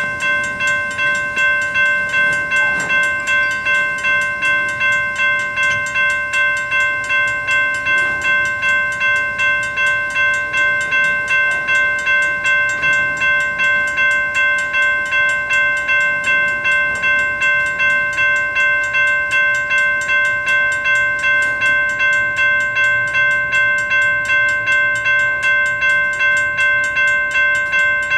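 Railroad grade-crossing warning bell ringing on and on, about two strokes a second, each stroke a bright metallic ring that decays before the next.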